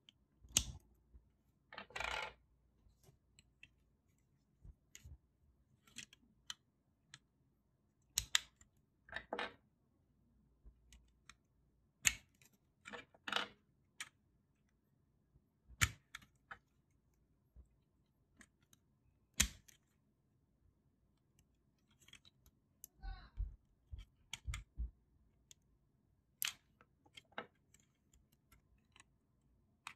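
Plastic Lego parts clicking and scuffing as rubber tyres are worked onto rims and the wheels are pressed onto the car's axles: sharp clicks every second or two, a few with a short rubbing scrape.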